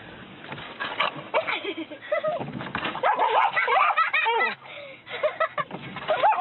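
Cocker spaniel barking and yelping excitedly inside a car, with a quick run of high, rising-and-falling yips around the middle.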